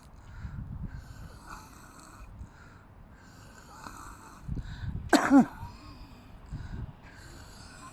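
A person's heavy, wheezy breathing close to the microphone, a soft puff about every second and a half. About five seconds in comes one short, loud sound that falls sharply in pitch.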